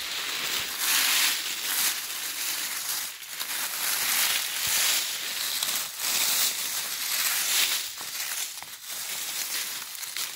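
Dry fallen beech leaves rustling and crunching in repeated bursts as a hand brushes them aside.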